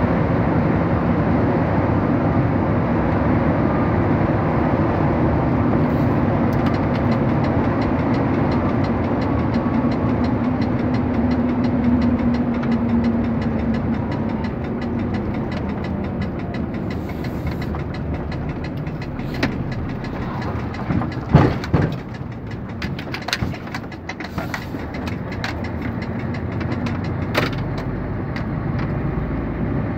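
Road vehicle heard from inside its cabin while driving: steady engine and road noise that grows quieter about halfway through. A cluster of sharp knocks and rattles comes about two-thirds of the way in.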